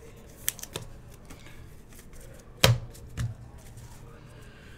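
Hands handling trading cards and a clear plastic card sleeve: a few light clicks, then a sharp knock a bit past halfway and a softer knock about half a second later.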